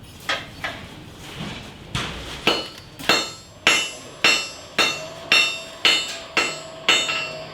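Blacksmith's hammer striking iron on an anvil: a few light taps, then steady blows about two a second, each one ringing. The iron being struck has gone cold.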